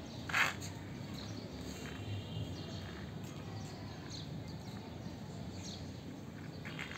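Steady low outdoor background noise with a few faint bird chirps, and one brief scrape of a small plastic toy tank pushed over concrete about half a second in.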